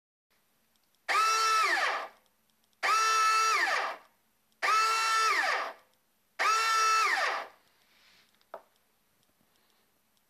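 Airsoft gun electric motor driven through a MOSFET board in short runs: four bursts of about a second each, a steady high whine that drops quickly in pitch as the motor brakes to a stop. A single click follows near the end.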